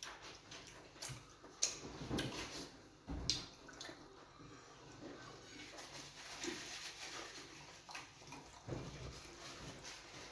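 Wet eating sounds from fufu and groundnut soup: scattered short smacks and slurps, the sharpest about one and a half and three seconds in.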